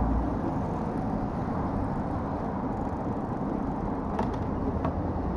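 Steady low rumble of a pet stroller's wheels rolling over asphalt, with two faint clicks near the end.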